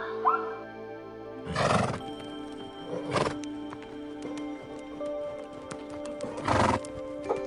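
A horse snorting three times in short, noisy blasts, the last one longer, over steady background music.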